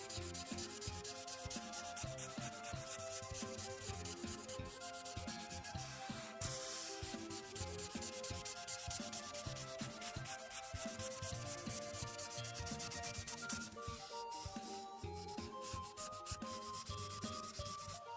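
Felt-tip marker nib rubbing across paper in quick back-and-forth coloring strokes, with soft background music underneath.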